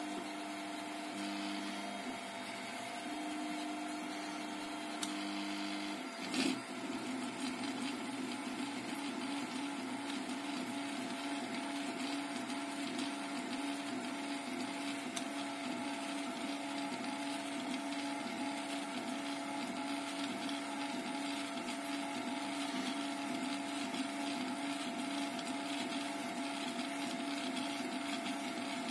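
Home-built CoreXY 3D printer printing its first test layer: the stepper motors sing in short steady tones that jump in pitch as the print head moves, then in a continuous wavering tone after a short click about six seconds in, over a steady hum.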